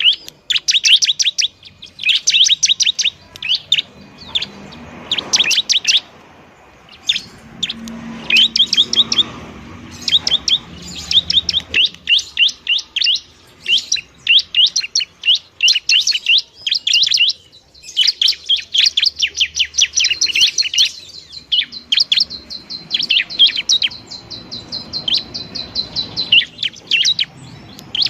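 Ciblek (prinia) singing a loud, busy chattering song: bursts of very fast repeated high notes with short breaks between them. In the second half a thin steady high tone runs under the notes for several seconds.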